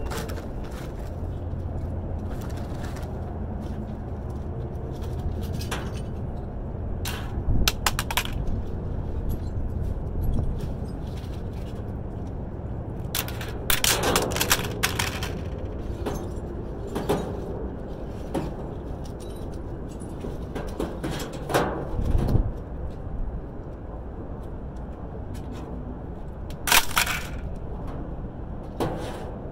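Scrap metal being handled and thrown: irregular clanks, rattles and clatters, several in quick runs, over a steady low rumble.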